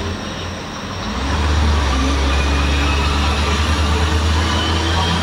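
City bus engine and road noise heard from inside the cabin while the bus is driving, with a low engine drone that grows louder about a second in and then holds steady.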